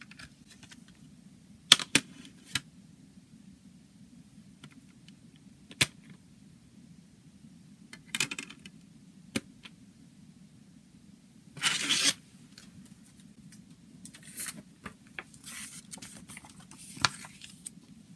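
A plastic CD jewel case and its paper booklet being handled: sharp plastic clicks and snaps as the case is opened, short scrapes, a longer harsh scrape about two-thirds through, then paper rustling as the booklet is opened near the end. A faint steady low hum runs underneath.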